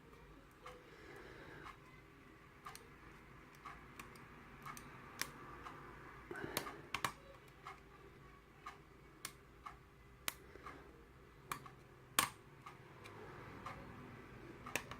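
Small metallic clicks and ticks from a hook pick and tension wrench working the pins of an Ilco lock cylinder. The clicks are irregular, coming roughly every half second to a second, with one sharper click about twelve seconds in.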